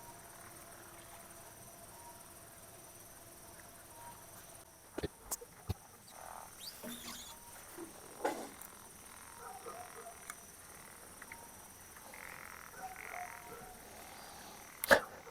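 Frogs calling faintly, scattered short croaks over a steady high insect buzz. A few sharp clicks come through about five seconds in, again near eight seconds, and loudest near the end.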